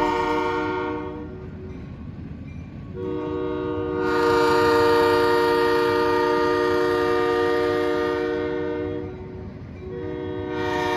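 Locomotive air horn sounding in long, steady blasts: one ending about a second in, a long blast of about six seconds, and another starting near the end, over the low rumble of the passing train.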